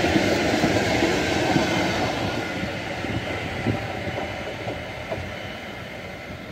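Freight train's open-top wagons rolling past on the rails, a rumble with wheel clicks, then fading steadily as the train moves away.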